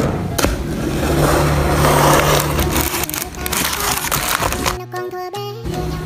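Plastic and cardboard packaging crinkling and rustling as a parcel is unwrapped by hand, loudest in the first three seconds, over background music.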